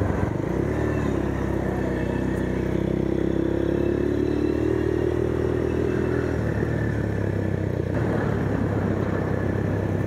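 Motorcycle engine running steadily while riding, with no change in engine speed.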